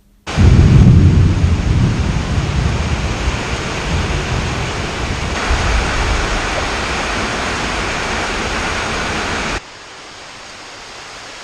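Heavy tropical rainstorm downpour, starting abruptly with a strong deep rumble in the first couple of seconds. About nine and a half seconds in it cuts suddenly to quieter, steady rain.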